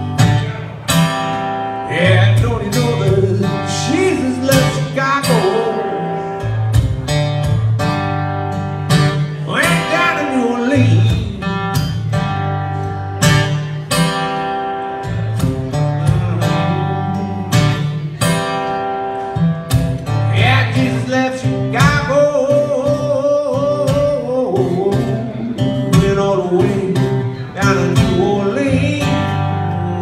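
Live acoustic blues: an Eastman E10OM acoustic guitar strumming a shuffle rhythm, with a harmonica playing a bending, wavering lead over it.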